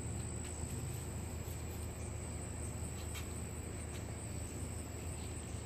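Crickets trilling steadily in a single high, unbroken tone over a low, steady background hum.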